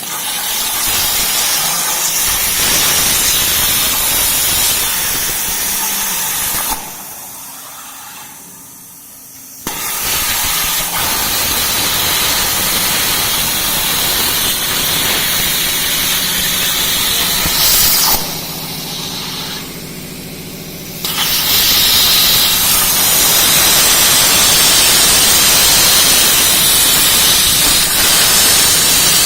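CNC plasma cutter's arc cutting with a loud, steady hiss, broken twice by pauses of about three seconds between cuts. A low steady hum runs underneath.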